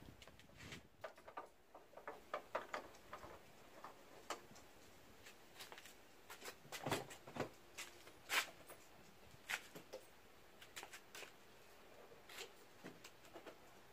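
Faint, irregular clicks and light taps: handling noise from work on a ute's body and doors.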